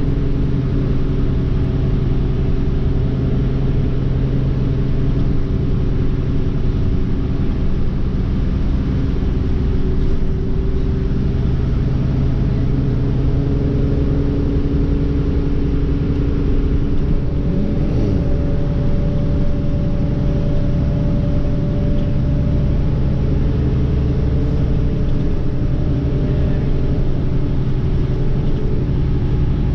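Inside a moving city bus: a steady low engine drone with road and tyre rumble, holding an even level throughout.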